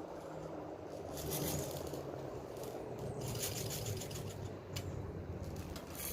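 Faint irregular rattling, clicking and scraping of an airsoft gun being loaded by hand.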